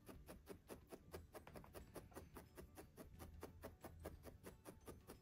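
A felting needle stabbing repeatedly into wool fleece on a felting pad: faint, soft ticks, about six a second, in an even rhythm.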